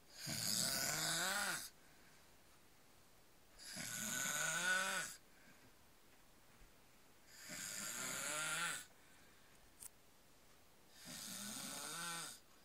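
A man snoring in his sleep: four long, pitched snores, one about every three and a half seconds, with quiet breathing in between.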